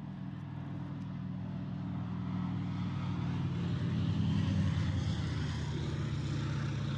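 Piston-engined propeller aircraft droning, growing louder over the first four seconds or so and then holding steady.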